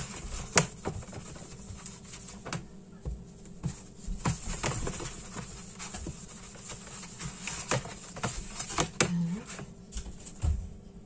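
Hands working in a plastic food container on a counter: scattered light knocks, clicks and rustles of plastic at irregular intervals.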